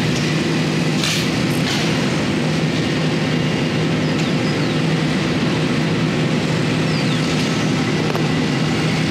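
Steady motor drone, a constant low hum like a running engine or machine. Two short rasps about a second in come from fabric being cut off a roll with a knife.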